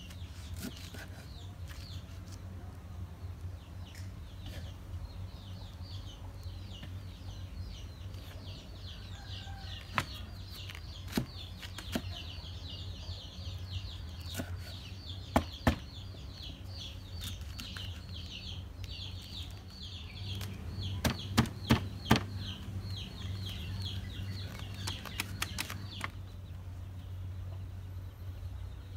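A kitchen knife cuts banana blossom on a wooden chopping board, with scattered sharp knocks as the blade meets the board. The loudest are two about halfway through and a quick run of four about two-thirds through. Behind it, birds chirp rapidly and without a break until shortly before the end, over a low steady hum.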